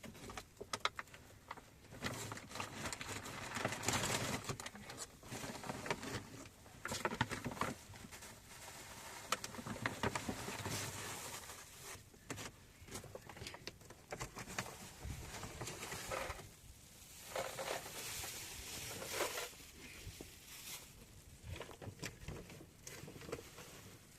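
Irregular rustling with many scattered light clicks and knocks, coming and going in uneven bursts.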